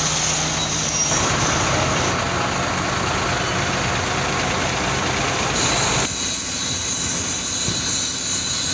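Concrete mixer truck engine running, a steady heavy-vehicle rumble whose sound shifts abruptly about a second in and again about six seconds in.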